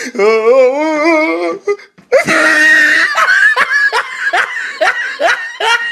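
A wavering, drawn-out voice, then after a short break about two seconds in, loud high-pitched laughter in quick repeated rising bursts.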